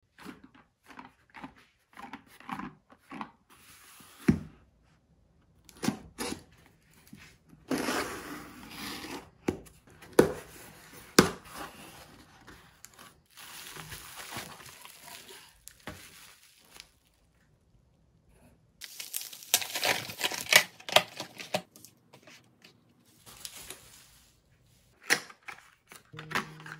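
Hands unpacking a cardboard shipping box and bubble-wrapped parcel: irregular rustling, crinkling and tearing of packaging, with sharp knocks of the box and short quiet pauses between.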